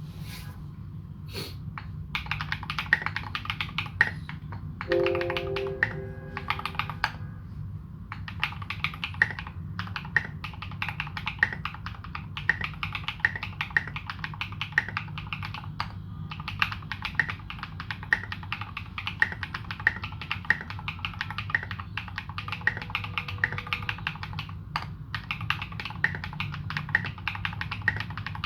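Steady, fast typing on a Morgan65 custom mechanical keyboard with fully modded Holy Panda tactile switches and SA-profile keycaps: a dense run of keystroke clacks, broken by a few short pauses.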